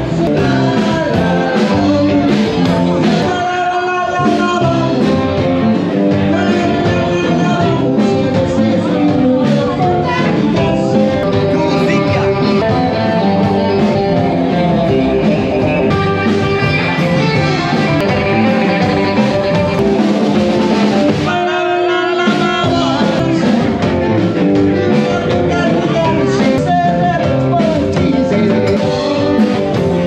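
Music with a singing voice, playing steadily and loudly.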